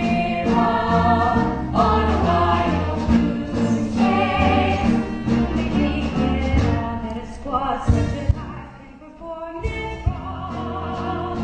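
Musical-theatre music with voices singing over an accompaniment. It thins out briefly near the end, with a couple of sharp hits, then comes back in.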